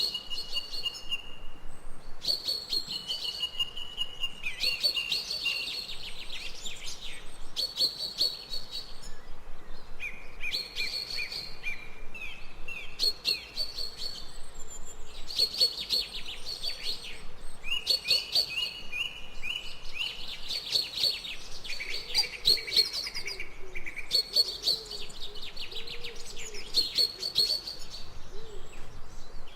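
Songbirds singing, with high, rapid trilled phrases repeated every couple of seconds and short gaps between them. Fainter, lower calls join in during the second half.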